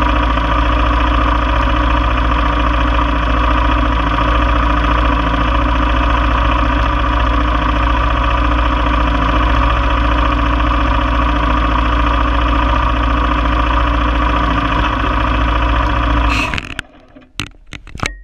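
Single-cylinder engine of a 1995 Honda Foreman 400 four-wheeler idling steadily while parked. It cuts off abruptly about sixteen seconds in, followed by a few sharp clicks as the rack-mounted camera is handled.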